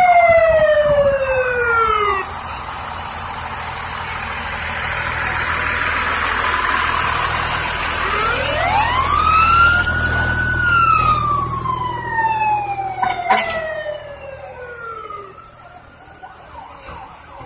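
Fire engine's siren falling in pitch and dying away about two seconds in, then the truck's engine passing close by. About eight seconds in the siren winds up to a high pitch and then falls slowly away over several seconds.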